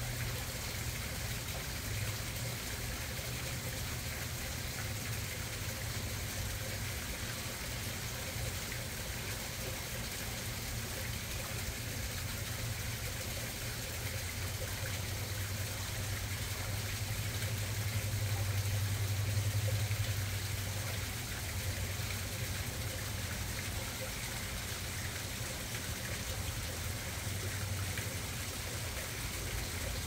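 Small garden koi pond waterfall splashing and trickling steadily, with a low rumble that swells for a few seconds past the middle.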